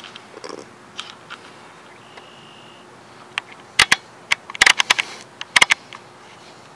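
A few sharp clicks and knocks in three short clusters around the middle, over a quiet background, typical of a handheld camera being handled close up.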